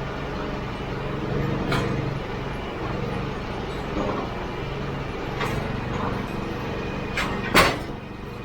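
Portable bandsaw mill's engine running steadily, with a few sharp knocks and clanks, the loudest one near the end.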